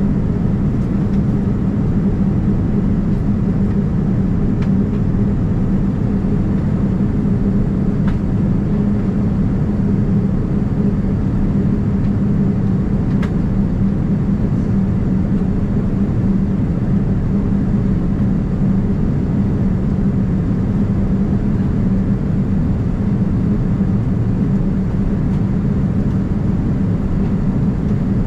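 Steady cabin noise of a Boeing 787-9 in flight, heard at a window seat: engine and airflow noise with a low, even hum. A couple of faint clicks come through in the middle.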